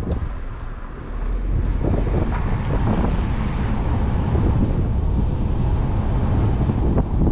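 A car being driven: steady road rumble and wind on the microphone, growing louder about a second in.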